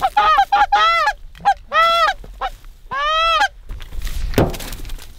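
Goose honking: a quick string of short honks, then two longer drawn-out honks, with a brief rushing noise near the end.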